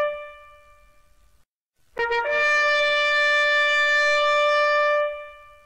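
Music: a horn-like wind instrument holds one long steady note that fades out. After a short near-silent gap, a brief lower note slides up into a second long note at the same pitch, held for about three seconds before fading.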